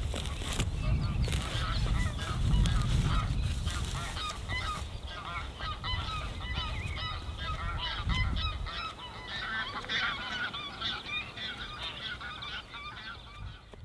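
A flock of geese honking, many short calls overlapping, fading toward the end. A low rumble sits under the calls for the first several seconds.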